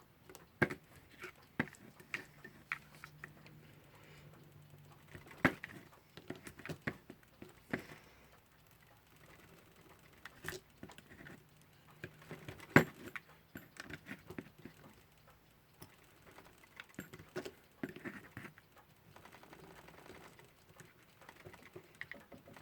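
Scattered small clicks and taps of metal hand tools against a Westclox alarm clock movement as a stuck knob is worked at, with one sharper click about 13 seconds in.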